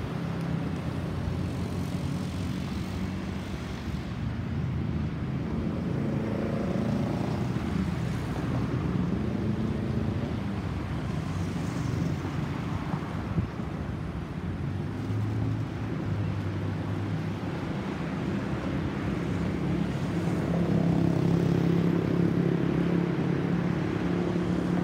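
Jet noise from an Airbus A320-216's CFM56 turbofans as the departing airliner passes high overhead: a steady, distant low rumble that grows louder about twenty seconds in.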